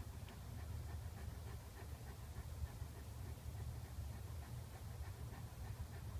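Dog panting softly and rhythmically, about three breaths a second, over a low steady rumble.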